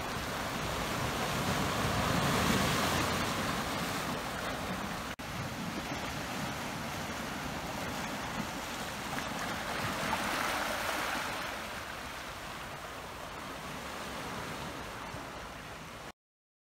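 Small sea waves washing in over rocks and a pebble beach in a steady rush, surging twice. The sound breaks off for an instant about five seconds in and stops abruptly near the end.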